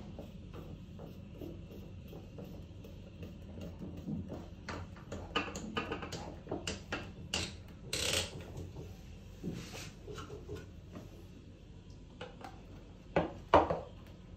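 Parts of a dissolution tester's basket and paddle stand being handled and fitted together: irregular clicks, knocks and rubbing, with a couple of louder knocks near the end.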